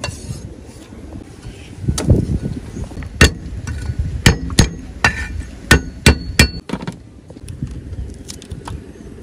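Knife chopping on a round wooden chopping block, slicing ginger. It makes a string of sharp knocks, the hardest about two to six and a half seconds in, followed by fainter clicks.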